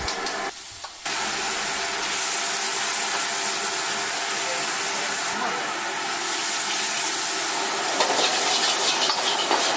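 Steady hissing of water and steam as daylily flowers are blanched and cooked in a wok. It starts about a second in, after a brief quieter moment.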